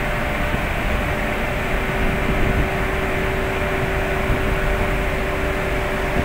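Ship's engines and machinery running, a steady loud drone with a constant hum over a rumble.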